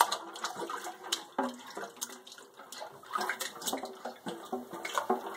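A baby splashing and slapping bathwater in a kitchen sink: short, irregular splashes, several a second.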